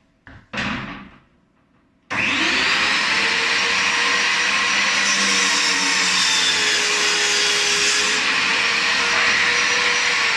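A couple of short knocks, then about 2 s in an electric power tool's motor switches on and runs steadily at full speed with a high whine, unloaded.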